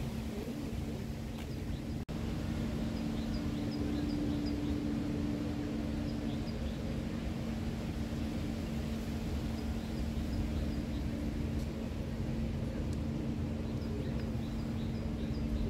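Steady low rumble of traffic with a constant engine-like hum, and a few runs of faint, short high chirps.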